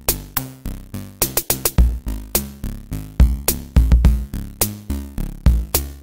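Electronic background music with a steady beat of sharp percussion hits over a stepping bass line.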